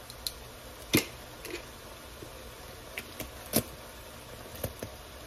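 Kitchen handling sounds: a scattered handful of short clicks and taps, the loudest about a second in, over a faint steady hiss.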